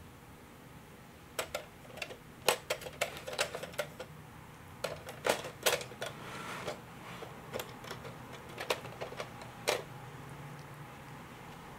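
Irregular sharp plastic clicks and clacks from a small toy gator-whacking game as a cat paws and mouths at its little plastic gators. The clicks come in uneven clusters, some close together, and stop a couple of seconds before the end.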